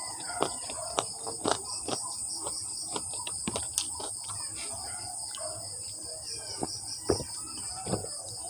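Close-up mouth sounds of eating fried chicken feet: chewing with many sharp wet clicks, then gulps of water from a glass. A steady, high, pulsing insect trill runs behind.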